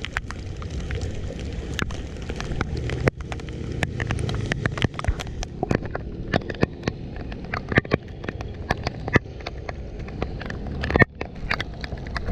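Leaves and debris being cleared from a clogged culvert drain in running floodwater: frequent sharp scrapes and knocks over a steady low rushing of water, with a louder knock near the end.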